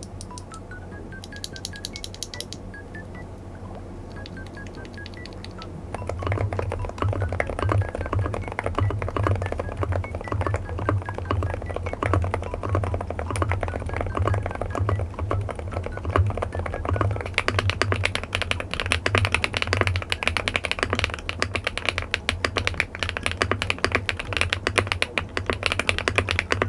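Typing on a mechanical keyboard: a fast, continuous run of keystroke clicks that starts about six seconds in and gets denser and louder later on, over background music.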